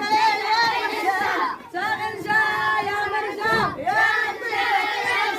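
A group of children and women chanting loudly together in unison, a repeated call-and-response rain-begging chant, with voices overlapping.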